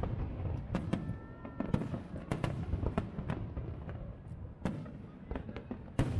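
Aerial firework shells bursting: sharp bangs and crackles at irregular intervals over a low rumble, with the loudest bang near the end.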